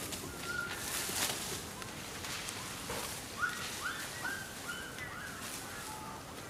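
A quick run of short squeaky animal calls about halfway through, each note rising and falling, after a few brief scuffing noises near the start.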